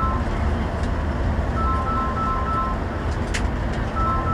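Inside a bus cabin at highway speed: steady low engine and tyre rumble. A short run of alternating two-tone electronic beeps repeats about every two and a half seconds, with a single sharp click about three seconds in.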